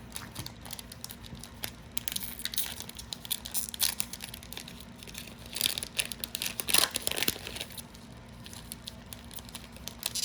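Foil trading-card booster pack wrapper crinkling and tearing, with cards being handled, in a run of crackles that grows busiest and loudest in the middle and settles near the end.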